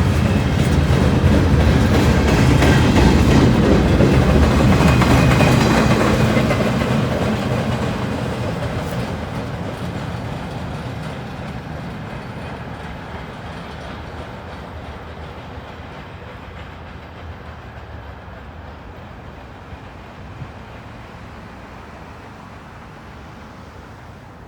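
Freight train rolling past. It is loud for the first six seconds or so, then fades steadily as the train moves away.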